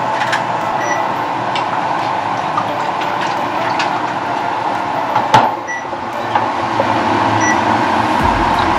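Gyoza frying in a lidded pan on the stove: a steady sizzle with scattered faint crackles, from gyoza close to burning. A single sharp clack of a utensil about five seconds in.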